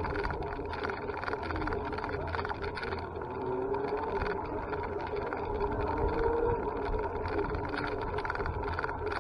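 A vehicle on the move: steady road and wind noise under a faint motor hum that wavers slightly in pitch.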